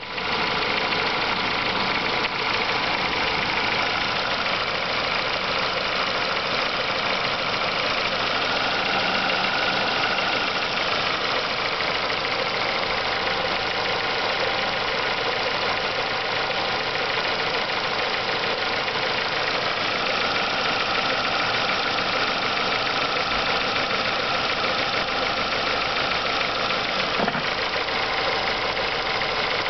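Renault Mégane II (phase 2) engine idling steadily with a knock from inside the engine.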